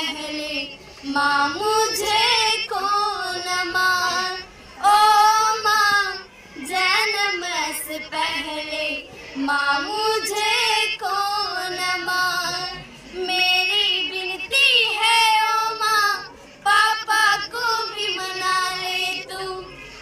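A high solo voice singing a Hindi song in phrases of one to two seconds with short breaks between them.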